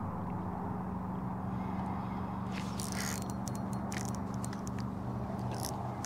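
Steady low hum of an electric trolling motor. From about halfway through, a run of light, quick clicks and scrapes from a spinning reel being cranked.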